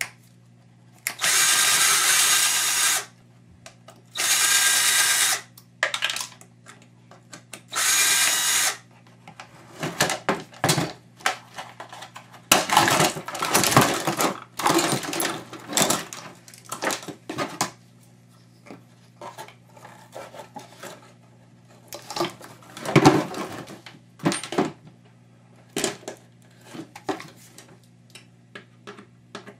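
Power drill run in three short bursts in the first nine seconds, backing screws out of a humidifier's plastic housing. After that, irregular clicks and clatter of plastic parts and wiring being pulled apart by hand.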